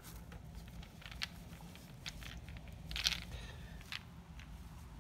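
Handling noise from a folded mesh fabric shade and a bundle of ball-ended bungee cords being picked up and moved: a run of soft rustles and small clicks, the loudest about three seconds in.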